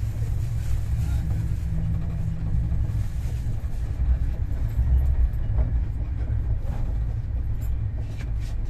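Passenger train running at a steady speed, heard from inside the coach: a steady low rumble.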